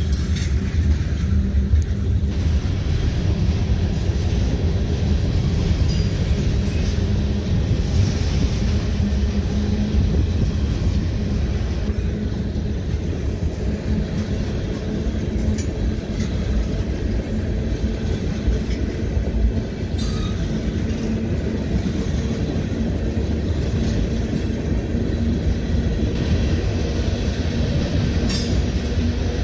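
Freight cars rolling past on the rails: a steady rumble of steel wheels on track, with a few sharp clicks and knocks scattered through it.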